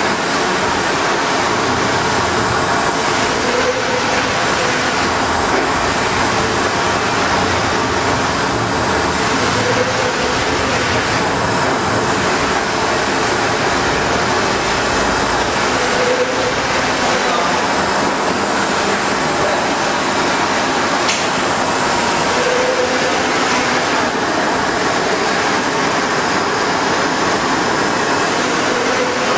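Large 2.5 × 1.3 m flatbed UV printer running a print: a steady mechanical noise as the print-head carriage with its UV curing lamps travels across the bed, with a few faint short tones every few seconds.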